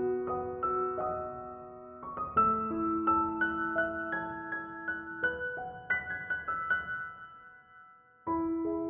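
Background music: a soft piano melody with sustained notes, fading out near the end before a new phrase starts abruptly.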